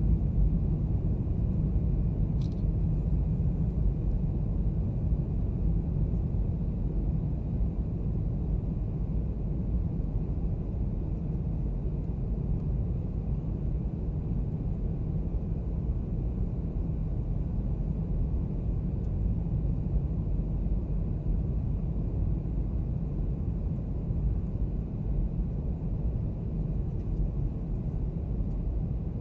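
Steady low rumble of a jet airliner cabin on approach, engine and airflow noise heard from a window seat, with a brief click about two and a half seconds in.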